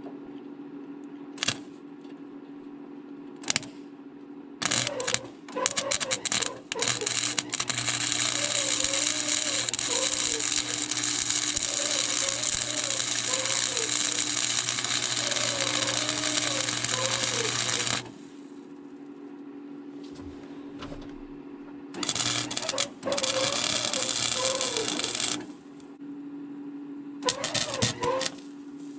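Electric welder's arc crackling as a nut is welded onto a stripped Phillips screw head to get it out: a few short bursts, then one long weld of about ten seconds, another of about three seconds, and short tacks near the end, over the machine's steady hum.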